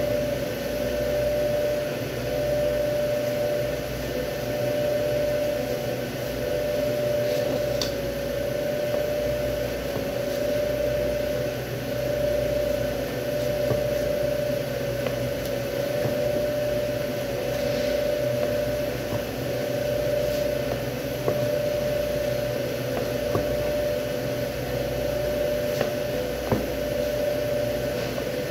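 Steady hum of room machinery with one constant mid-pitched drone, typical of a cutting room's cooling or ventilation, and a few faint taps of a knife on a plastic cutting board as beef is sliced into steaks.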